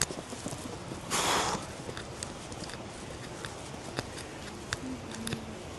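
Footsteps walking on a forest trail: scattered light clicks and crunches, with a short rustling hiss about a second in.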